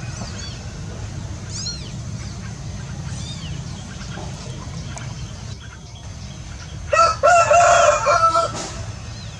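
A rooster crows once, loudly, about seven seconds in, over a steady low background rumble. A few faint high chirps come earlier.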